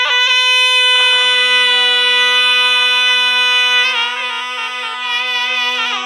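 Two zurnas, one a long kaba zurna, playing the opening of a bozlak. A high held note sounds first, a steady lower drone joins about a second in, and the melody breaks into quick wavering ornaments around four and six seconds in.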